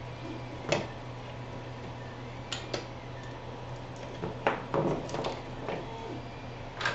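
Scattered clicks and light clatter of cables, connectors and small hard parts being handled as the 3D printer's wiring is untangled, with a cluster of knocks a little past the middle, over a steady low hum.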